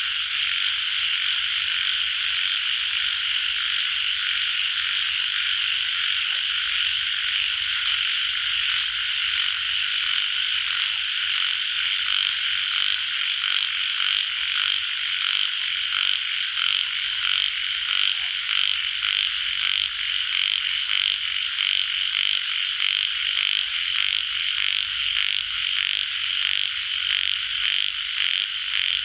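A dense chorus of frogs, given as yellow tiger frogs, calling without a break. A quick, regular pulsing in the calls grows more distinct in the second half.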